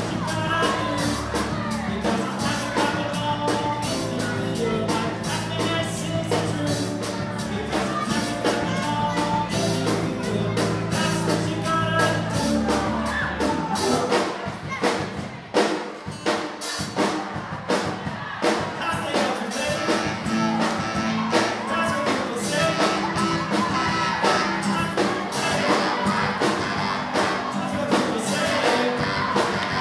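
Live rock band playing in a large hall: drum kit, keyboard and acoustic guitar with singing. About halfway through, the low end drops out for a few seconds, leaving mostly drums, before the full band comes back in.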